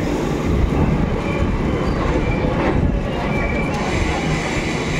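The 22388 Black Diamond Express passenger train running on the rails with a steady rumble, with a few short, faint, high-pitched squeals from the wheels.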